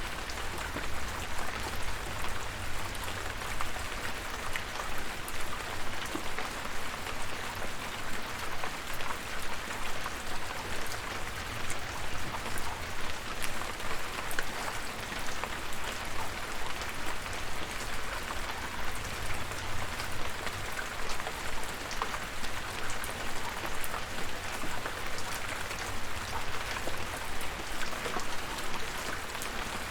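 Steady rain falling, with many separate drop hits heard over an even hiss and a low rumble underneath.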